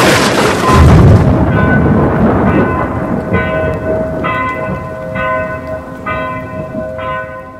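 A thunderclap with a long low rumble, then a deep bell tolling about once a second and slowly fading: an intro sound effect.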